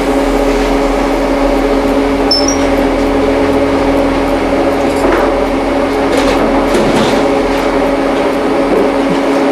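A steady machine hum holding several fixed tones, with a few faint clicks about midway.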